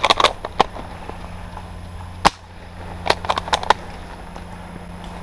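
Airsoft gunfire and gun-mechanism clicks. A quick run of sharp clicks comes at the start, one loud crack a little over two seconds in, and a second quick run of five or six clicks about a second later.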